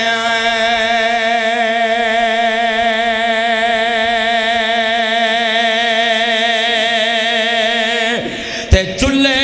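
A man's amplified voice holding one long sung note with a steady vibrato for about eight seconds, the drawn-out melodic chant of a preacher's sermon. The note breaks off near the end, then comes a single sharp knock, and the voice starts again.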